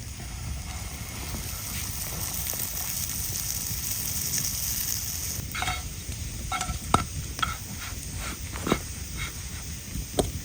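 Grilled cheese sandwich sizzling in a frying pan. About halfway through the sizzle drops away, and a series of light clicks and clinks follows.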